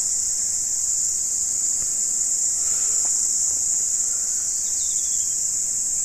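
A steady, high-pitched chorus of insects, one continuous shrill drone without a break.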